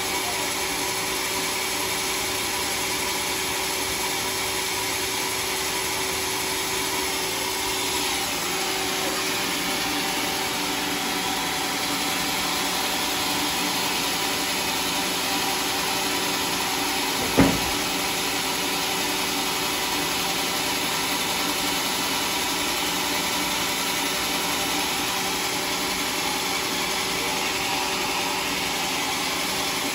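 Homemade sawmill running steadily, its motor and blade giving an even hum and whir, with one sharp knock about seventeen seconds in.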